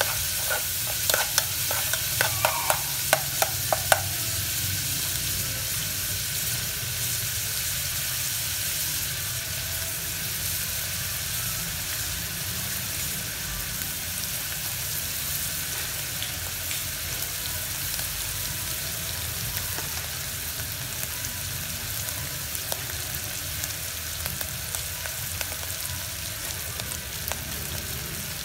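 Minced meat and garlic sizzling in hot oil in a metal pot, with a spoon scraping and clinking against the pot for the first few seconds, then a steady sizzle.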